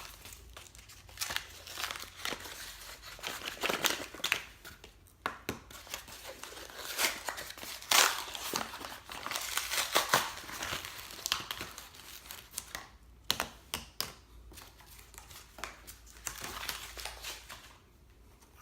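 Shipping package being opened by hand: packing material crinkling and tearing in irregular bursts of rustles and rips.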